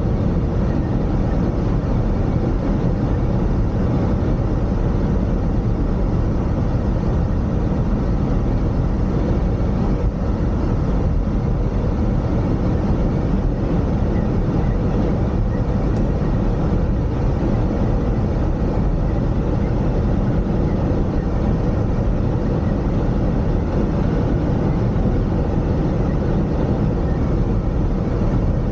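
A car driving along: a steady, unchanging rumble of road and engine noise, heaviest in the low end.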